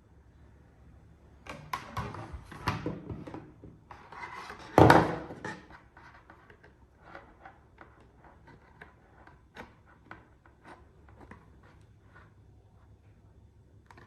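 Close handling sounds of hard objects: a run of clicks, rubs and scrapes, the loudest about five seconds in, followed by lighter scattered ticks.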